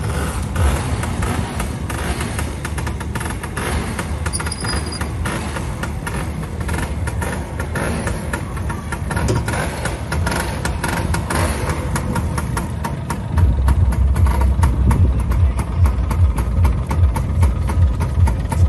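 Scooter engine idling, a steady pulsing rumble that becomes much louder about thirteen seconds in.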